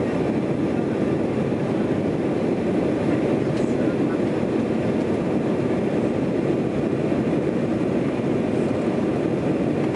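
Steady cabin rumble inside an Embraer E-195 airliner climbing after takeoff: the drone of its two GE CF34-10E turbofan engines and the airflow over the fuselage, even and unchanging.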